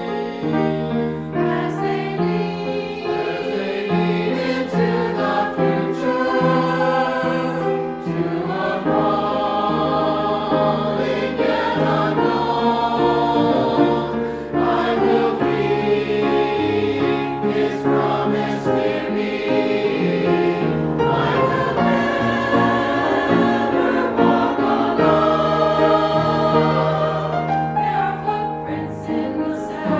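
A choir singing a hymn with instrumental accompaniment, sustained notes moving chord by chord over a steady bass line.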